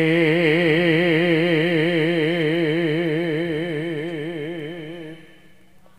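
A singer holds one long note of a Javanese jaranan song with a wide, even vibrato, then fades out about five seconds in.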